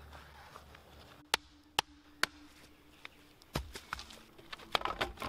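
Three sharp chopping knocks, about half a second apart. They are followed by footsteps crunching and crackling through dry leaf litter and sticks.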